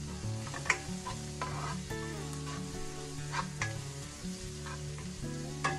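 Chopped onion, green chilli and turmeric sizzling in hot oil in a nonstick wok while a spatula stirs and scrapes through them, with several sharper scrapes against the pan, two of them louder. The spice is being roasted in the oil.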